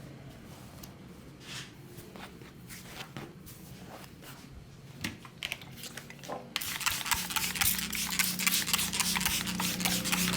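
Hands rubbing and scrubbing briskly on a person's hair and scalp during a head massage. It begins suddenly about two-thirds of the way in, after several seconds of faint scattered taps and light rubs, and is a loud, fast, scratchy rustle.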